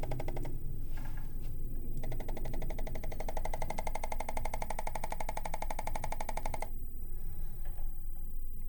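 ArthroStim electric chiropractic adjusting instrument firing a rapid, even train of taps against the face over the sinuses, a mechanical buzzing rattle. It grows stronger about two seconds in and eases again near seven seconds.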